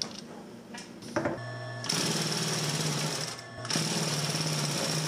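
Consew 206RB industrial walking foot sewing machine stitching through fabric. A brief hum about a second in, then a steady run of stitching that stops for a moment about three and a half seconds in and starts again.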